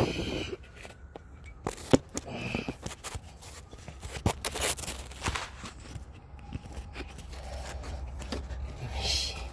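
Irregular scrapes, knocks and clicks of someone moving about and handling parts, over a steady low rumble.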